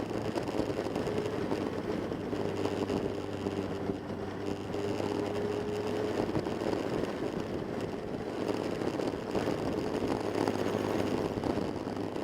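Motorcycle engine running steadily, a continuous mechanical hum with no gear changes or sharp revving.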